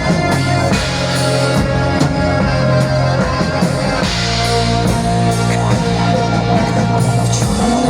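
Live band playing an instrumental passage of folk-rock, with guitar, bass and drums keeping a steady beat.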